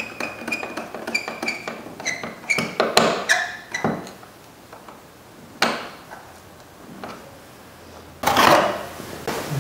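Hose clamp on a plastic air intake duct being tightened with a screwdriver: a run of small metallic clicks and ticks over the first few seconds, then a few separate knocks. Near the end comes a rustling scrape about a second long.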